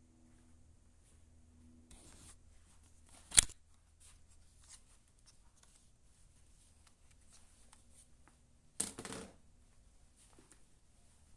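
Quiet room with faint rustling, broken by one sharp click about three seconds in and a short rustle or scrape near nine seconds.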